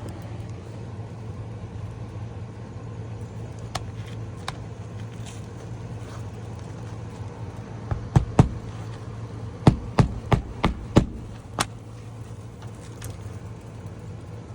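Hammer striking roofing nails into an asphalt shingle: about eight sharp blows in two quick runs, starting about eight seconds in, over a steady low hum.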